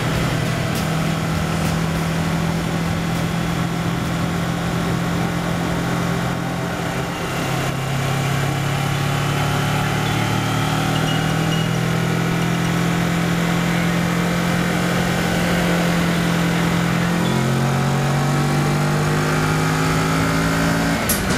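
Kawasaki Versys 650's parallel-twin engine running under way at a steady cruise. It eases off briefly about a third of the way in, then rises in pitch as the bike accelerates near the end.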